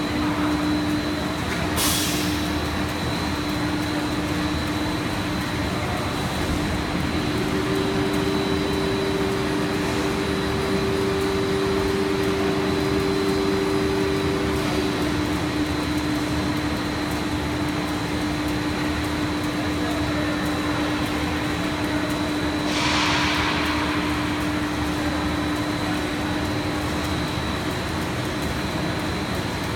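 Steady machine drone of a running twin-screw PET sheet extrusion line, with a constant low hum and a faint high whine; a second, slightly higher hum joins for about eight seconds. A very short hiss comes about two seconds in and a longer, one-second hiss about two-thirds of the way through.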